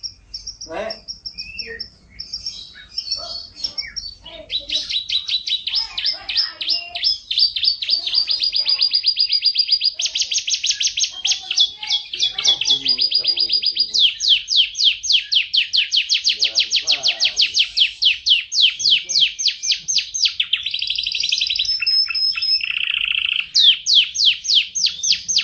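Domestic canary singing a long, continuous song of fast trills: rapid runs of repeated high notes, switching to a new trill every few seconds.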